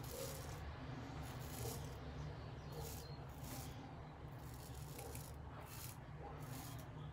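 Max Sprecher 8/8 straight razor scraping stubble through shaving lather on the cheek: a run of short, separate strokes, about one or two a second.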